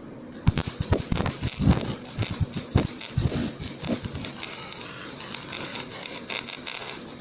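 Welding arc crackling and sputtering as a bead is laid on steel plate with the welder's heat setting just turned up. It strikes about half a second in and keeps up an irregular stream of sharp pops and crackles.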